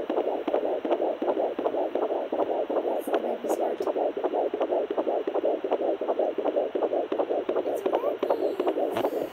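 Fetal heartbeat at about 12 weeks of pregnancy, heard through a 3 MHz pocket fetal Doppler's speaker: a fast, even whooshing pulse at about 160 beats a minute.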